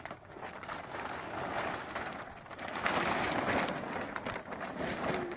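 Heavy rain falling, a dense pattering that swells about three seconds in.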